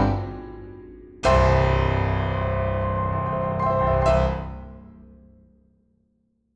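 Background piano music. A run of notes fades out, then a chord is struck about a second in and rings out, dying away to silence near the end.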